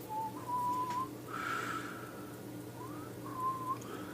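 A man whistling a few short notes to himself, with pauses between the phrases.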